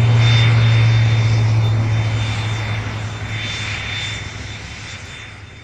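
A steady low droning hum with a thin high whine above it, fading away over the last few seconds.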